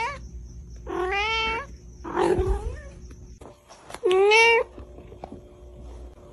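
Domestic cat meowing: short, clear, slightly rising meows about a second apart, then a rougher, noisier one about two seconds in and a last clear meow about four seconds in.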